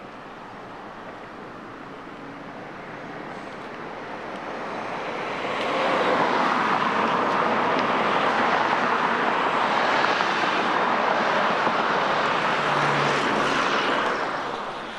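Cars passing on a multi-lane road: tyre and engine noise builds over the first six seconds, stays loud and steady, then eases near the end.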